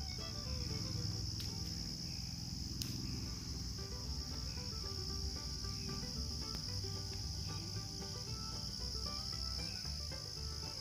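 Steady, high-pitched chorus of insects. Faint music with shifting notes and a low hum play underneath.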